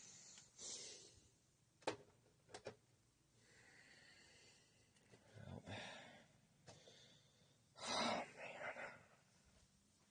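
A person breathing and sighing in a quiet room: a few short breathy exhales, the loudest about eight seconds in, with a few soft clicks around the two-second mark.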